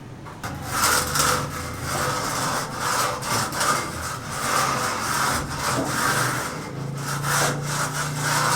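Hand saw cutting wood in repeated back-and-forth rasping strokes, about two a second.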